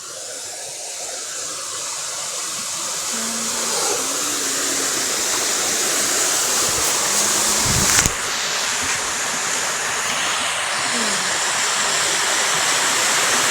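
Waterfall rushing, a steady wash of falling water that grows steadily louder; a single knock about eight seconds in.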